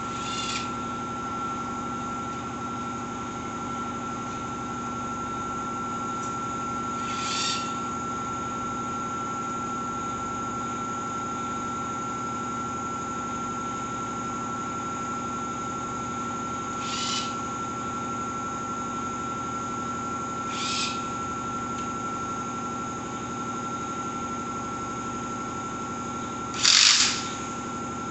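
Cordless drill-driver run in five short bursts, the last and loudest near the end, over a steady background hum with a high whine.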